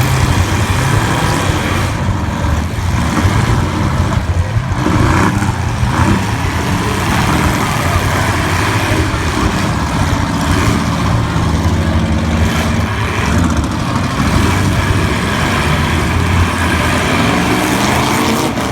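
Several V8 demolition-derby cars' engines running and revving together, their pitch rising and falling, with a few short knocks from impacts.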